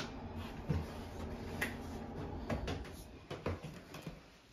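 Several soft knocks and thumps scattered over a few seconds, above a faint low rumble, fading away near the end.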